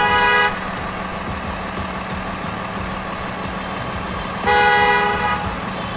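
Car horn honking twice, about four seconds apart, each honk roughly a second long. A steady engine hum runs between the honks.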